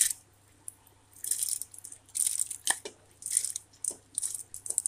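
Soaked split lentils (dal) tipped from a metal bowl into an aluminium pressure cooker, rattling and pattering against the metal in several bursts, with a few sharp metal-on-metal clicks.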